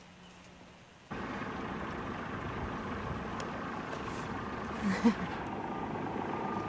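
Sailboat's engine running steadily, cutting in abruptly about a second in, with one short sharp knock about five seconds in.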